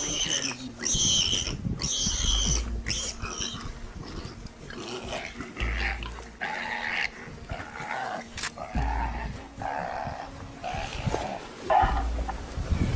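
Animal fight calls from a spotted big cat and a grey animal grappling with it. There is a run of high-pitched squeals in the first few seconds, then repeated lower-pitched calls about once a second.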